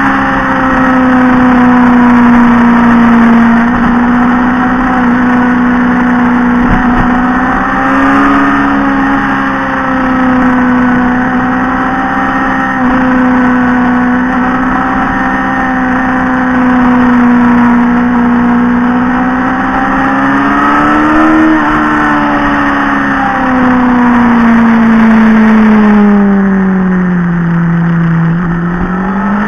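Motorcycle engine running steadily under way through a series of bends, heard from the bike itself. Its pitch rises and falls gently with the throttle. Near the end the revs sag lower and then climb again.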